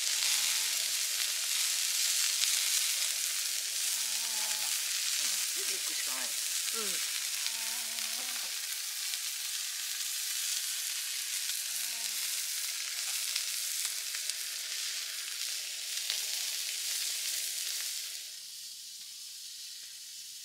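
Slices of beef sizzling steadily on a hot cast-iron griddle pan over a camping gas burner. The sizzle drops away sharply near the end.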